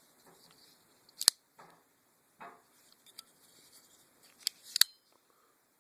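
Folding pocket knives handled on a hard surface: a sharp metallic click about a second in and two more close together near the end, with softer scraping and a faint tick between.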